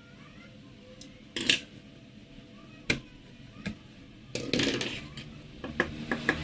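Scattered sharp clicks and a brief scrape of small hard plastic and metal parts being handled, with a quick run of clicks near the end, typical of laptop disassembly.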